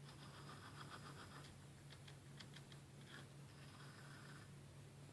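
Faint whir of a Dish Tailgater satellite antenna's small drive motor turning the dish in two short spells as it scans for a satellite, with a few light clicks, over a low steady hum.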